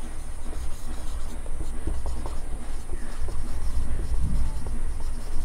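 Felt-tip marker writing on a whiteboard: a run of short, scratchy strokes as words are written out, over a low steady background hum.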